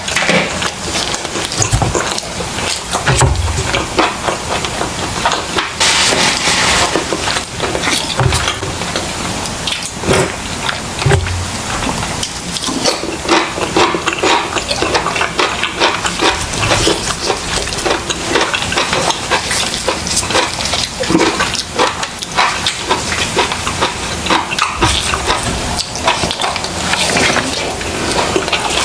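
Close-miked chewing and mouth sounds of a person eating grilled chicken, with many small clicks throughout.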